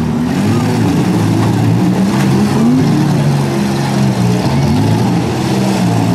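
Several demolition derby cars' six-cylinder engines running and revving at once, their pitch repeatedly rising and falling.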